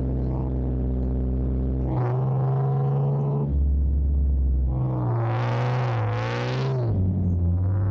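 Electronic background music: sustained synthesizer chords over a deep bass, changing every second or two.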